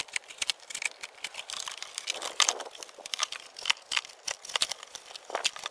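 Knife cutting a small hole through the side of a cardboard shoebox: a run of short, irregular scratching and tearing strokes of the blade through the cardboard.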